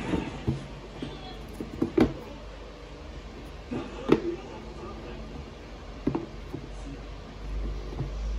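Soft knocks and taps from a gloved hand handling a pair of leather Nike Dunk Low sneakers on their cardboard shoebox, one every couple of seconds, with a low rumble near the end as the shoes are picked up.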